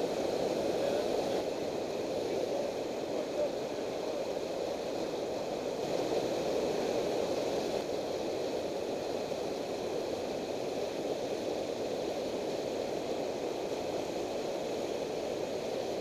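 Steady rushing of river water pouring over a low dam spillway, an even wash of noise with no breaks.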